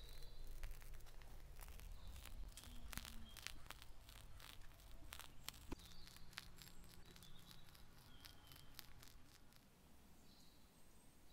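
Soft crinkling and irregular clicks of a plastic piping bag being squeezed as whipped cream is piped out.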